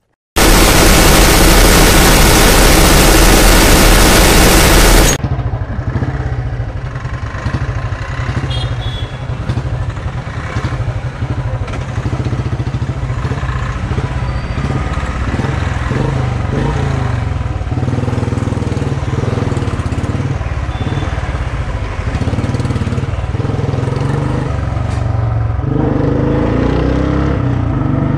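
A loud burst of rapid machine-gun fire, a sound effect, for about five seconds and cut off suddenly. Then a motorcycle engine runs steadily under riding noise and revs up near the end.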